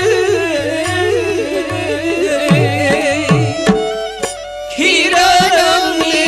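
Devotional singing with harmonium accompaniment and a hand drum whose low strokes drop in pitch. The voice pauses briefly about two-thirds of the way through, then comes back strongly.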